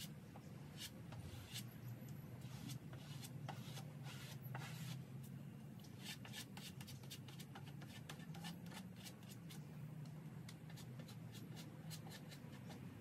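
Plastic spreader scraping glazing putty thinly and firmly across a primed car fender: faint, irregular short scrapes and rubs, one after another.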